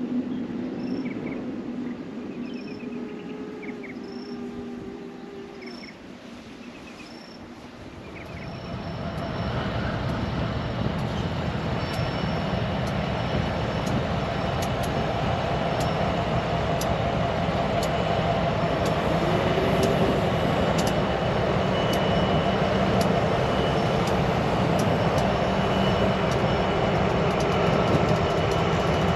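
Quieter for the first eight seconds, with short repeated chirps. Then diesel freight locomotives on a narrow-gauge line run past with a steady loud engine rumble. From about eleven seconds a run of sharp wheel clicks is heard over the rails.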